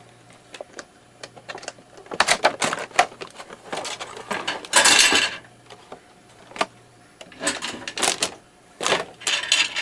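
A soldering gun being unpacked: packaging handled and opened, with scattered clicks and rustles, a half-second rustle about five seconds in, and more handling near the end.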